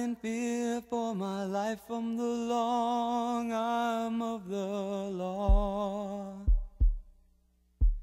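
Song soundtrack: a solo voice sings a melody held on long, drawn-out notes with no clear words, then fades. A few deep thumps follow from about five and a half seconds in, then a short pause, and another thump at the very end.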